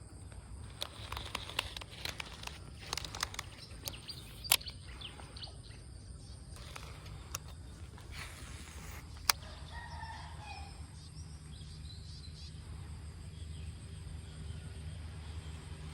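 Scattered clicks and taps, two of them sharp and loud, over a steady low rumble, with a faint short bird call a little past the middle.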